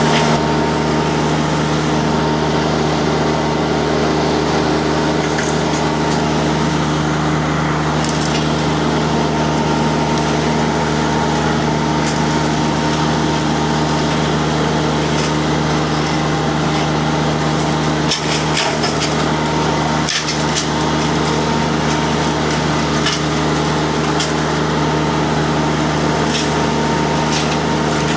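Mini skid steer's diesel engine running steadily at high speed while the disc mulcher's spinning disc chews into wood, with repeated sharp cracks and snaps of splintering wood, clustered near the middle and the end.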